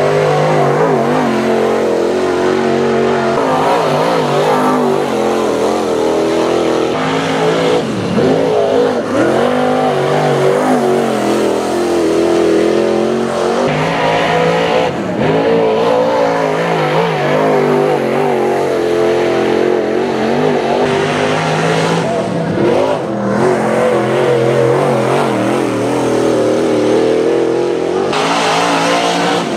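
Dirt late model race cars' V8 engines running hard around a dirt oval, the pitch rising and falling as they accelerate and lift through the laps.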